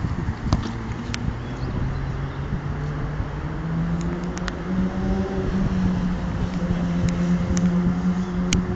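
A motor running with a low, steady hum that rises slightly in pitch about three to five seconds in and then holds. A few faint clicks sound over it.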